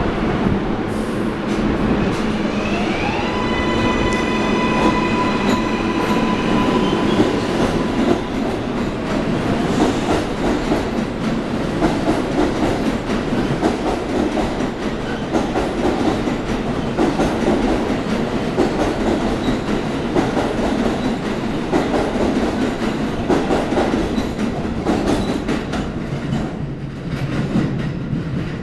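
R188 subway train pulling out of a station: its propulsion motors give a rising electric whine a few seconds in that settles into steady tones, over the rumble of the cars. The wheels then clatter and knock over the rail joints and switches as the train runs off, the sound easing slightly near the end.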